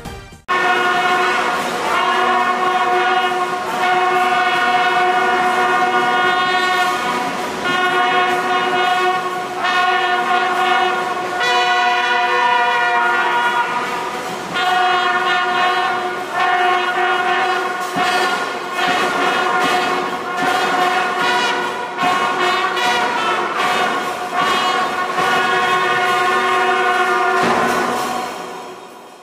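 A school brass band of trumpets and bugles playing together in long held notes with short breaks, fading out near the end.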